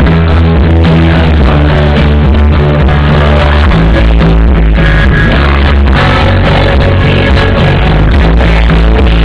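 Loud live band music from a concert stage, recorded close to overload on a phone, with heavy sustained bass notes.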